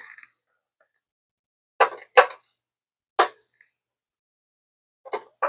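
Short, sharp clicks and knocks of tools and parts being handled during guitar repair work: two close together about two seconds in, one about a second later, and two more near the end.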